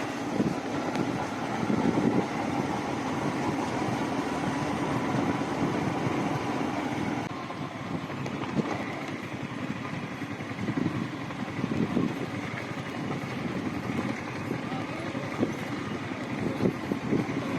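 Yamaha MT-15 single-cylinder motorcycle heard from the rider's seat while riding a rough road, the engine running steadily under a rush of wind and road noise.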